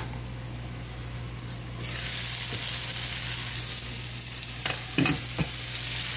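Onion, peppers and jalapeno frying in a skillet: a steady sizzle that jumps louder about two seconds in, with a couple of short clatters about five seconds in. A low steady hum runs underneath.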